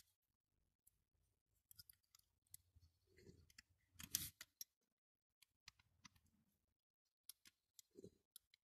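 Near silence with faint, scattered clicks and taps of small parts on a die-cast model lorry being worked by hand, with a brief louder clatter about four seconds in.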